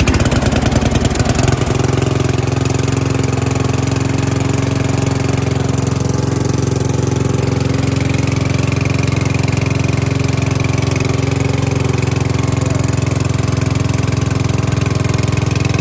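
Old ride-on lawn mower's small engine catching after hard starting, running unevenly for about the first second and a half, then settling into steady running.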